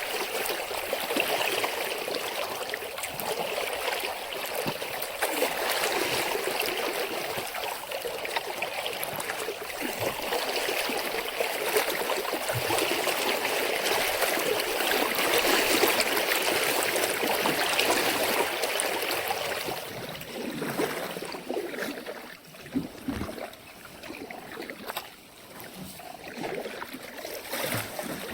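Water of a small brook running steadily around the kayak, easing about two-thirds of the way through, after which it is quieter with a few short splashes or knocks.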